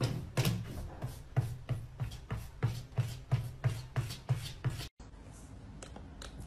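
A cat scratching and digging in a top-entry plastic litter box, in quick even strokes about three a second. The scratching stops abruptly about five seconds in, leaving faint room tone.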